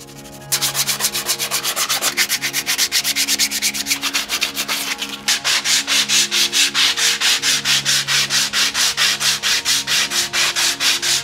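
Sandpaper on a hand sanding block scrubbed back and forth over a sailboat's fibreglass rudder blade. Quick even strokes, about four or five a second, start about half a second in and grow louder about five seconds in.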